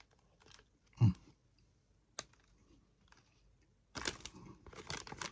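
A person eating a filled chocolate muffin. There are soft mouth clicks and a short closed-mouth 'mm' about a second in, then a run of quick crackly noises from about four seconds in.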